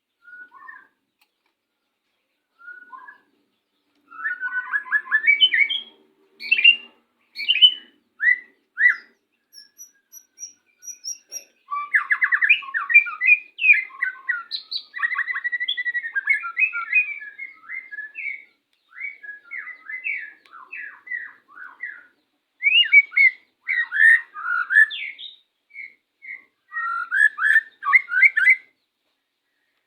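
White-rumped shamas singing and calling in rapid bursts of varied chirps, whistles and harsh notes during pairing for breeding. The song starts with a few scattered chirps and becomes dense and nearly continuous after about four seconds.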